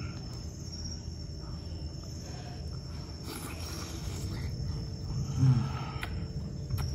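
Man savouring a spoonful of food, giving a short closed-mouth 'mmm' of enjoyment about five and a half seconds in, over a steady high-pitched trill.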